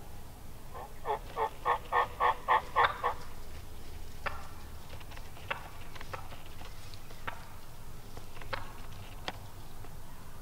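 Wild turkey yelping: a run of about eight yelps, about three a second, growing louder, followed by scattered single short clucks.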